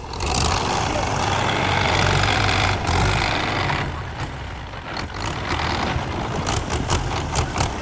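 Heavy diesel construction machinery at work: an engine runs steadily under a loud rushing noise that lasts about four seconds, followed by scattered knocks and clatter.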